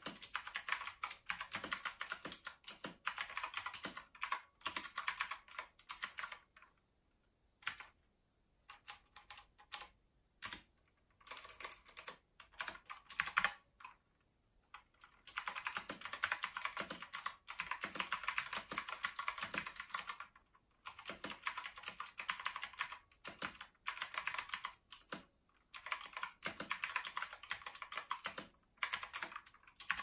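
Leobog K21 mechanical keyboard with clicky blue switches being typed on: fast runs of sharp keystroke clicks broken by a few pauses, the longest a stretch of scattered keystrokes about a quarter of the way in.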